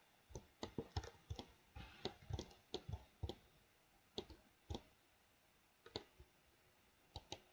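Faint, irregular clicks of a computer mouse and keyboard keys: a quick run of clicks in the first three seconds, then a few scattered ones.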